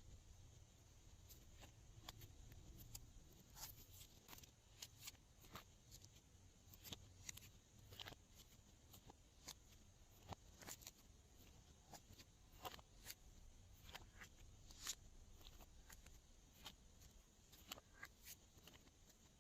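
Faint, irregular sticky clicks and pops of glossy slime being squeezed and stretched by hands, several to the second at times.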